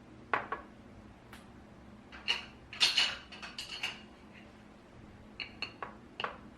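Kitchenware clinking and knocking: a string of short, light clinks with a brief ring, about a dozen in all, bunched into a few quick clusters as items are handled and set down.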